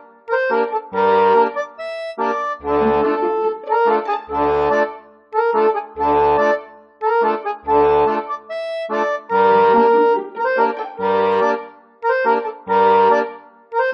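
Background music: sustained reedy chords over a low bass note that comes back every second and a half or so.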